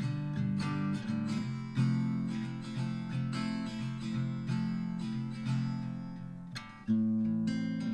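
Background music: strummed acoustic guitar at a steady rhythm, with a fresh strum about seven seconds in.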